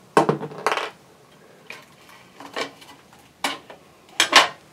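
Sharp metal clinks and scrapes from the metal rear cover of a Tektronix 7854 oscilloscope being worked loose and lifted off its frame. There are about half a dozen separate knocks spread over a few seconds, the loudest near the start and near the end.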